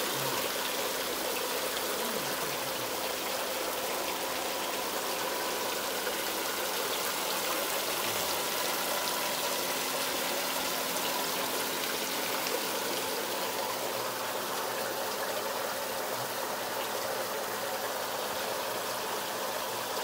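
Water falling as a curtain of thin streams from a round Corten steel fountain ring into the pond below: a steady splashing patter, with a faint steady hum underneath.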